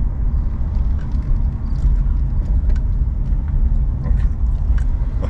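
Car interior noise while driving: a steady low rumble of engine and road, heard from inside the cabin, with a few faint clicks.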